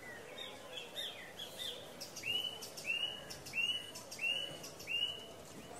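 A bird calling over a steady background hum of ambience: a few scattered chirps, then a run of five short, identical chirps evenly spaced, each rising and then dropping slightly in pitch.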